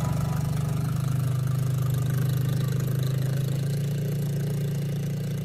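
Coolster ATV's small single-cylinder four-stroke engine idling steadily on its replacement carburetor.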